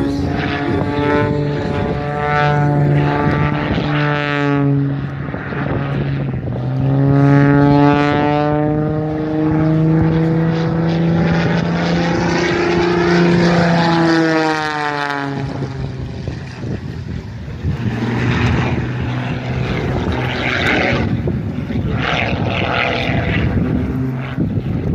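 Modified Pitts S2S aerobatic biplane with a 400-horsepower engine, its engine and propeller droning through aerobatic manoeuvres. The pitch climbs and falls as it goes, with a brief dip about two-thirds of the way through before it settles lower.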